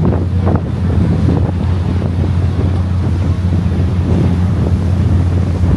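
Sightseeing river boat under way: its engine drones steadily with a low hum, over wind buffeting the microphone and water rushing along the hull.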